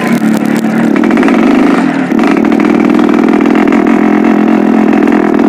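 Yamaha RX-King's single-cylinder two-stroke engine running steadily at idle on a freshly tuned carburettor, its note stepping up slightly about two seconds in.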